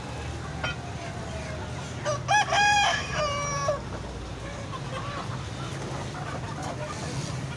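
A rooster crows once, a loud drawn-out cock-a-doodle-doo about two seconds in, over a steady low background hum.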